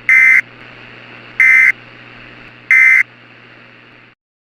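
Emergency Alert System end-of-message signal: three short bursts of SAME digital data about a second apart, marking the end of the alert. They play over a steady hiss and low hum that cut off shortly before the end.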